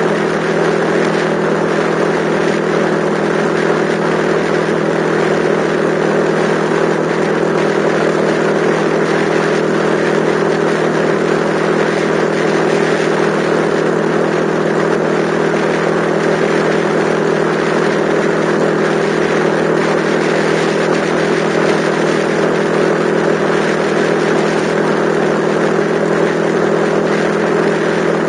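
Yamaha XTZ125's single-cylinder four-stroke engine running at a steady cruise, its note unchanging, with a constant rush of wind and road noise.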